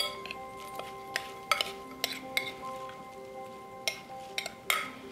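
Buttered cracker-crumb topping being poured and scraped out of a bowl onto a casserole, with a utensil clinking and scraping against the dishes about seven times. Soft background music plays under it.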